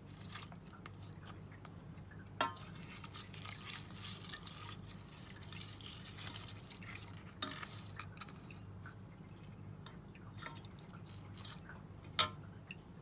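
Kitchen utensils and dishware clinking and clattering, with three louder sharp clinks spread a few seconds apart among lighter taps, over a steady low hum.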